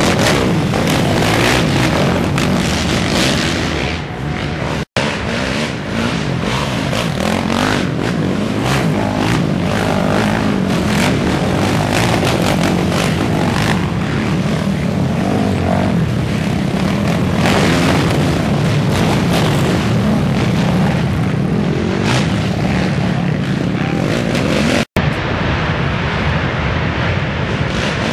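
Racing quads (ATVs) revving hard as they pass on a dirt trail, their engines running loud and unbroken. The sound cuts out for an instant about five seconds in and again near the end.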